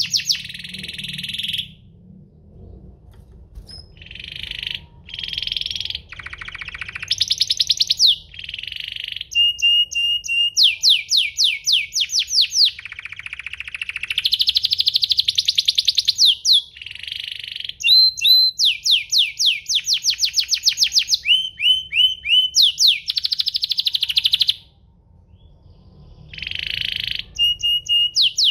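Domestic canary singing a long, varied song: fast trills of repeated downward-sweeping notes alternate with buzzy rolls and short whistled phrases, broken by a brief lull near the start and another near the end.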